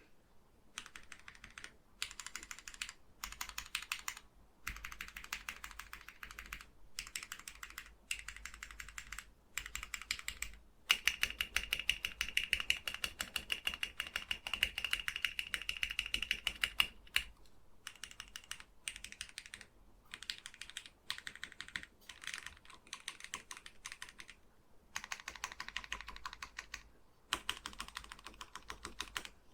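Modifier keys of a plateless, wooden-cased mechanical keyboard with lubed Gateron KS-3 Black switches and ABS keycaps being pressed over and over as fast as possible, giving rapid clacking in short bursts with brief pauses. One long unbroken run of about six seconds comes in the middle.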